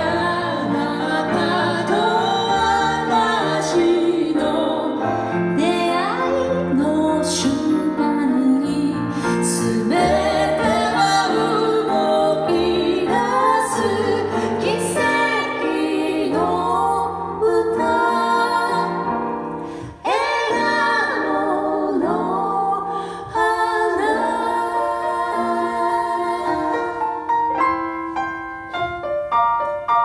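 A woman singing a ballad with grand piano accompaniment. Near the end her voice drops out and the piano plays on alone in short, separated chords.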